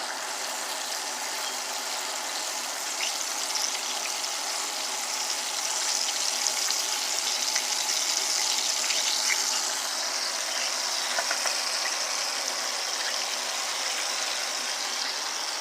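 Steady sizzling hiss of ribs frying in oil, swelling a little in the middle, with a few faint clicks of a spoon stirring a pot.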